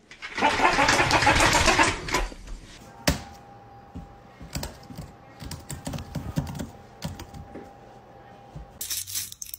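Computer keyboard keys clacking irregularly under a dog's paws for several seconds. Before it, a loud rushing noise of unclear source lasts about two seconds.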